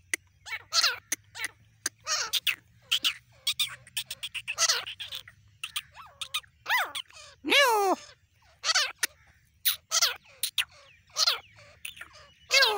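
Grey francolin calling: a quick string of short, sharp notes, with one louder, longer call about halfway through.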